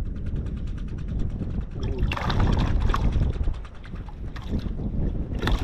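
Wind buffeting the microphone with a steady low rumble, overlaid by a fast fine ticking early on and two bursts of rustling and handling noise from the angler moving with his rod and jacket.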